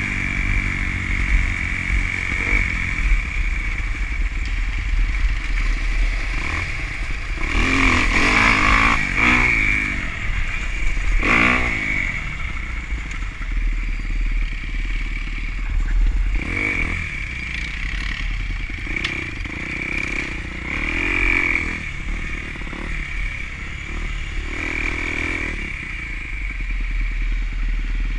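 An off-road vehicle's engine running under throttle while riding a trail, its revs rising and falling again and again. The strongest surges come about a third of the way in, over a steady background of rattling.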